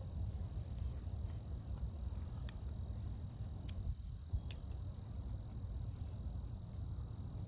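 An insect trilling steadily on one high note over a steady low rumble, with a few faint sharp clicks in the middle.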